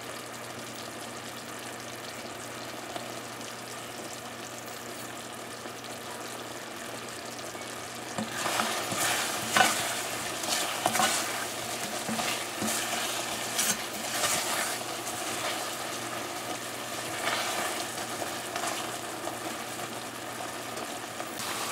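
Mango pieces sizzling in a thick, bubbling syrup of sugar and roasted cumin in a pot on medium heat as it cooks down and thickens. About eight seconds in, a silicone spatula starts stirring them with irregular strokes.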